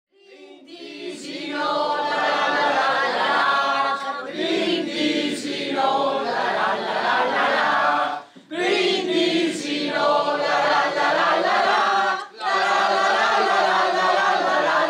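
A group of people singing together unaccompanied, a toast sung with cups raised. The singing breaks off briefly twice, about eight and twelve seconds in.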